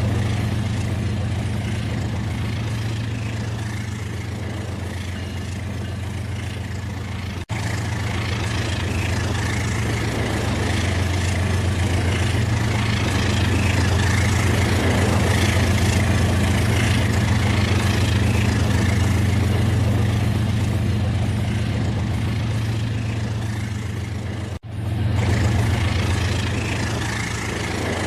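Battery-powered toy train's electric motor and gears whirring steadily as it runs, with a low hum under the noise of the wheels. The sound drops out sharply twice.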